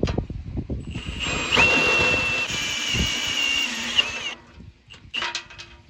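Cordless drill running for about three seconds, boring into a thin-walled metal water main line: its motor whine spins up, holds steady, then winds down.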